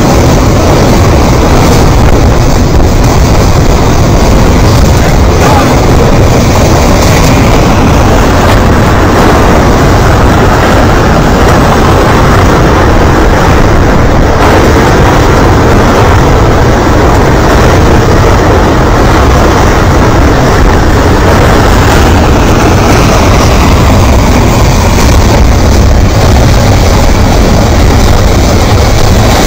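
Debris flow of mud, sand and stones surging down a rocky channel: a loud, continuous rumble of churning slurry and rolling rocks.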